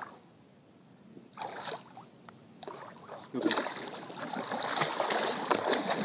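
A hooked fish thrashing and splashing at the surface of shallow creek water as it is landed in a hand net. There are a couple of short splashes at first, then steady, heavier splashing that builds over the second half.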